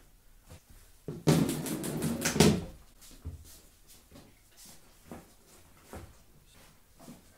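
Rustling and handling noises of a backpack being packed, with one loud burst of rustling about a second in that lasts a second and a half, then scattered light knocks and rustles.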